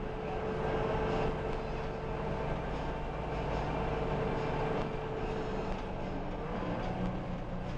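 Cabin noise of an articulated city bus under way: a steady engine and road drone with a low hum, and a faint steady whine that fades out about three-quarters of the way through.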